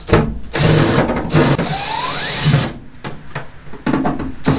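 Power drill running in a couple of short bursts and then steadily for about two seconds, backing self-tapping screws out of a sheet-aluminum floor patch.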